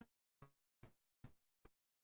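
Faint, evenly spaced taps, about two and a half a second, with silence between them.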